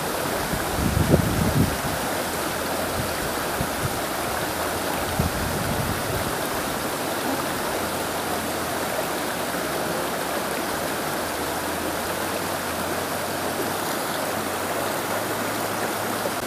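Shallow river rushing steadily over rocks, with a few soft low thumps about a second in.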